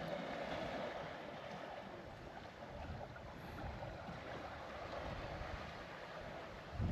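Steady wash of sea surf and wind, with a short low thump near the end.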